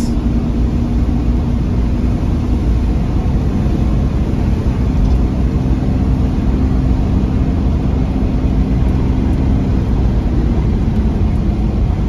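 A 1997 Camaro's 3.8-litre 3800 V6 pulling steadily under acceleration up a hill, heard from inside the cabin. It runs smoothly, without sputter or misfire, now that the bad ignition coil has been replaced. The engine note eases slightly near the end.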